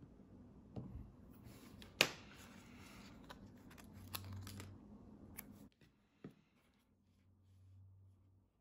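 Faint handling sounds of a craft knife and a sheet of dust-removal stickers: a sharp click about two seconds in as the knife is set down on the desk, then rustling and crinkling as a sticker is peeled from its backing, with a few light taps.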